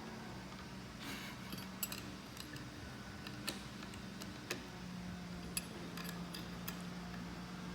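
Scattered faint metallic clicks and clinks of an angle grinder being handled while its wheel is fitted and the spindle lock button pressed; the grinder's motor is not running.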